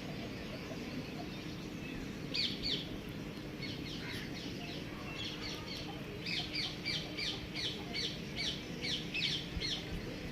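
Small birds chirping: short, high chirps, scattered at first, then a quick run of about three or four a second.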